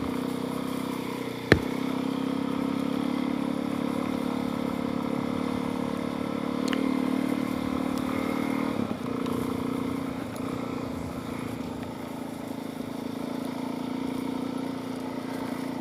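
Suzuki DR-Z400S single-cylinder four-stroke dirt bike engine, with an aftermarket exhaust and a freshly rejetted carburettor, running steadily under way at an even moderate speed. A single sharp knock comes about a second and a half in, and the engine note dips briefly near the middle.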